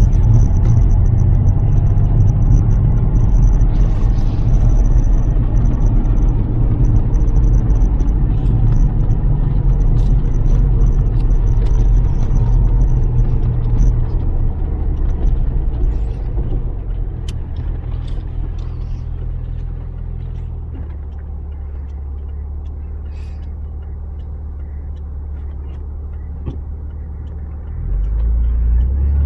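Lotus Carlton's twin-turbo 3.6-litre straight-six running as the car is driven, a steady low rumble of engine and road noise. It eases off about two-thirds of the way through and grows louder again near the end.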